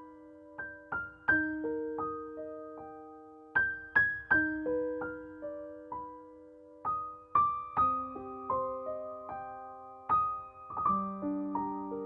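Background music: a slow, gentle piano melody of single notes and chords, each struck and left to fade.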